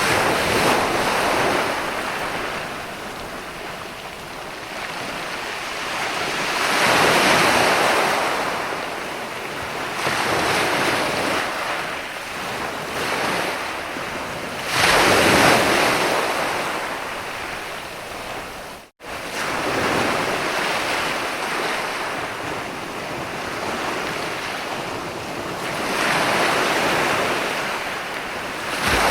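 Ocean surf: waves breaking and washing in, swelling to a louder rush every several seconds and then receding. The sound cuts out for an instant about two-thirds of the way through.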